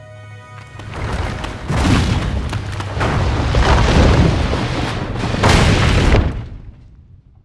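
Loud rumbling crash from a film soundtrack: a deep rumble with repeated heavy impacts that builds about a second in, stays loud for about five seconds and dies away near the end.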